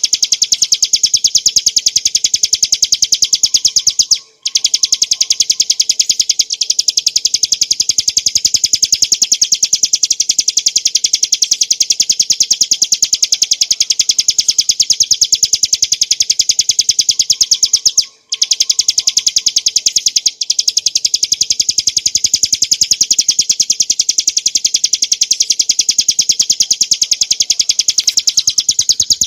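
Bar-winged prinia (ciblek gunung) singing a fast, continuous run of high, sharp repeated notes. The song breaks off briefly twice, about four seconds in and about eighteen seconds in.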